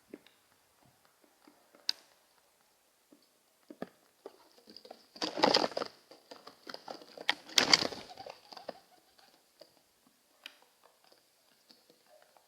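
Pigeons moving about at their water dish, with scattered light taps and two louder rustling bursts, about five and eight seconds in.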